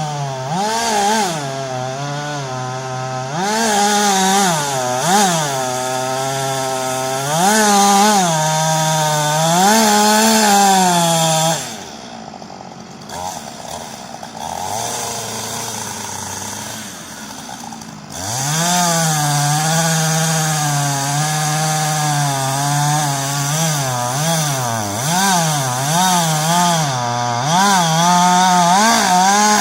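Two-stroke chainsaw cutting into a thick tree trunk, its engine pitch rising and falling over and over as it revs and bogs in the wood. About twelve seconds in it drops back to a quieter low run for about six seconds, then revs up and cuts again.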